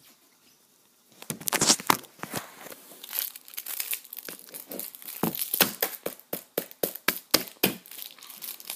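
Food packaging being handled and torn open: a quick, irregular series of crinkles and crackles starting about a second in.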